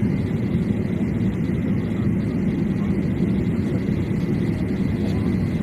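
Steady engine and airflow noise of a flydubai Boeing 737 jet airliner: a low, even rumble with a faint steady whine above it.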